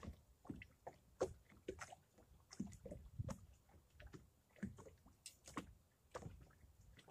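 Faint, irregular light knocks and splashes, a few a second: small waves lapping against the hull of a small fishing boat.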